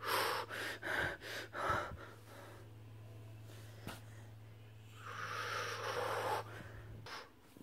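A person's breath: a few short breathy puffs in the first two seconds, then a longer breathy hiss around five to six seconds in, over a steady low hum that cuts out near the end.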